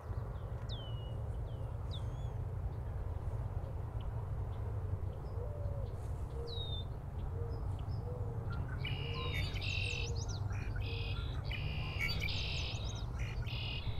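Red-winged blackbirds calling: short falling whistled chirps, then a burst of buzzy calls in the second half. A series of low, evenly spaced cooing notes runs through the middle, over a steady low rumble.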